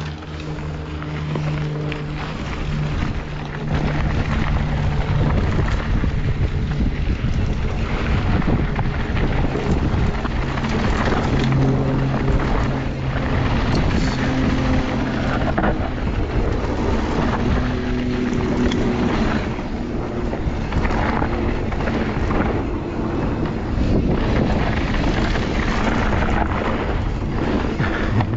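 Mountain bike riding fast down a dirt trail: wind rushing over the camera microphone, with tyres rolling over dirt and frequent knocks and rattles from bumps.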